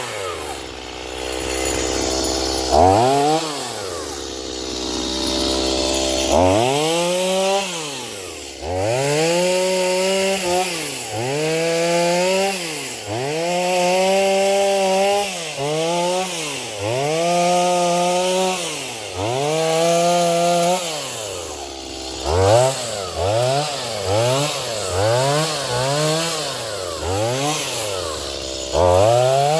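Stihl MS210 two-stroke chainsaw repeatedly revving up to full throttle and dropping back toward idle, about every couple of seconds, with quicker, shorter revs near the end.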